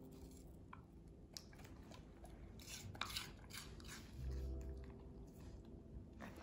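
A dog chewing a treat taken from the hand, with faint crunches that are thickest about three seconds in.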